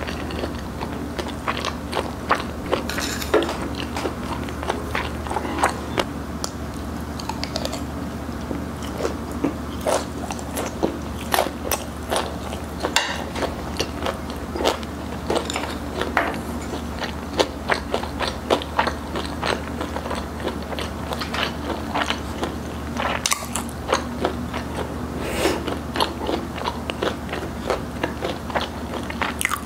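Close-miked eating: chewing and sharp, irregular crunches of crispy fried chicken.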